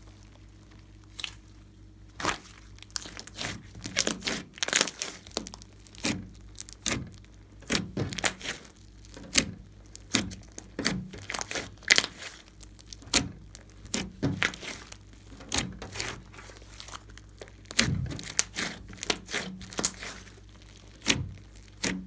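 A large mass of thick, bubbly slime being kneaded, squeezed and pulled apart by hand, giving many short, sharp sticky pops and clicks at irregular intervals. The pops start about two seconds in.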